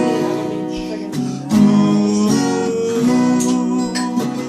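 Strummed acoustic guitar chords in an instrumental passage of a gentle song, with sustained notes ringing between the strums.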